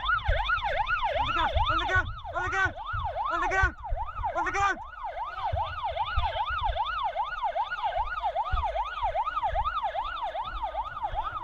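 Police car siren on its rapid yelp setting, sweeping up and down about three times a second, with a second siren sweeping briefly at a lower pitch early on, over vehicle rumble.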